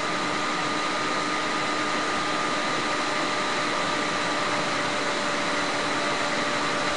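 Steady background hiss with a thin, unchanging whine in it: constant machine or room noise under the recording, with no events.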